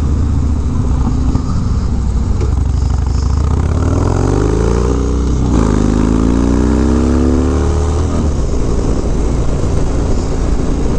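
Harley-Davidson Dyna's V-twin engine through a Bassani Road Rage exhaust, running under power at road speed with wind noise over it. Partway through, the engine note rises, drops, and rises again as the bike accelerates.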